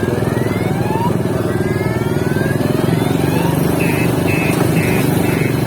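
Steady drone of motorcycle engines, with several rising whistle-like glides early on and a rapidly repeating high beep starting about two thirds in.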